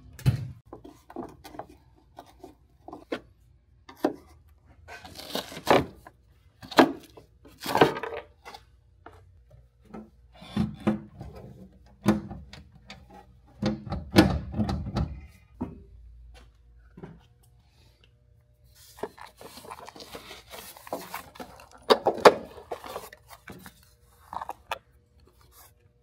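Car parts being handled and worked loose by hand: a run of irregular knocks, clicks and scraping rubs, with a lull of a few seconds past the middle before another cluster of knocks and scrapes.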